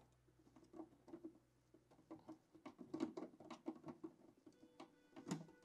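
Faint, scattered small clicks and light scratching of hand work on the alarm communicator, as its GSM antenna is fitted and screwed onto the connector.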